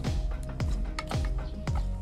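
Background music with a steady beat, about two deep kick-drum thumps a second over sustained synth tones.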